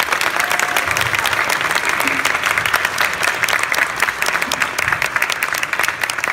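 Audience applauding: dense, steady clapping from a hall full of people.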